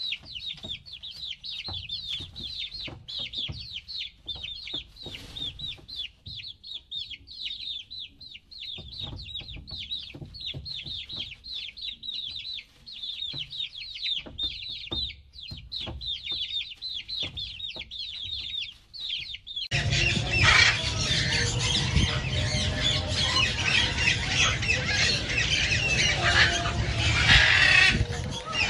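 Many young chicks peeping in a fast, high-pitched stream, with a hen clucking beneath. About two-thirds of the way through, this cuts suddenly to a louder, busier mix of squawks from caged parrots and cockatoos.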